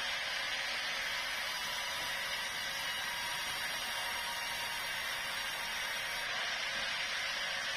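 Sawmill saw running through a large meranti log: a steady, unbroken noise without rhythm.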